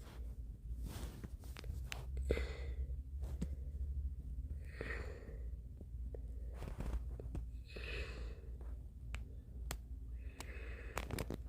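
A person breathing out audibly close to the microphone: four soft sighing breaths about three seconds apart, with a faint low hum underneath.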